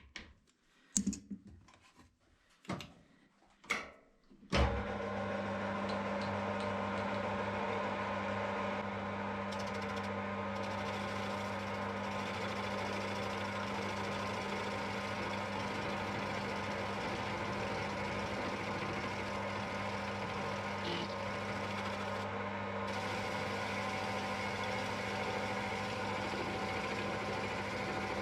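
A few handling knocks and clicks, then about four and a half seconds in a lathe is switched on and runs steadily with an even electric-motor hum.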